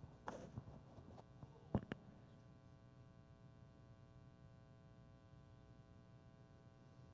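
Near silence with a steady electrical hum. A few faint knocks and rustles come in the first two seconds, the sharpest a single click just under two seconds in.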